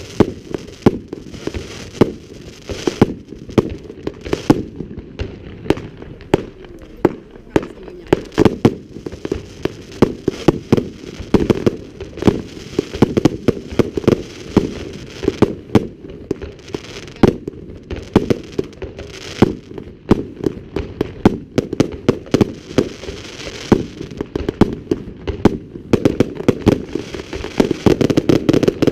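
Fireworks display: a rapid, irregular run of loud bangs from bursting shells, with crackling between them, growing denser near the end.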